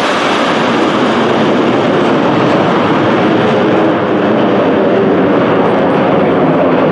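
Aermacchi MB-339 jet trainers of the aerobatic formation flying over, their jet engines making a loud, steady rushing noise.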